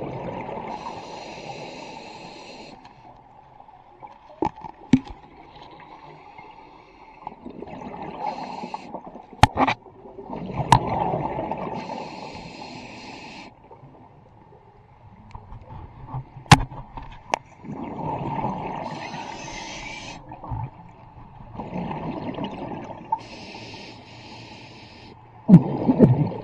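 Scuba diver's regulator underwater: breaths drawn through the demand valve with a hiss, and bursts of exhaled bubbles rumbling past the camera every few seconds. A few sharp clicks or knocks cut in between.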